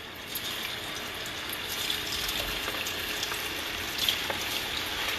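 Cornstarch-coated chicken thigh pieces frying in hot oil: a steady sizzle with small crackles that builds up within the first second.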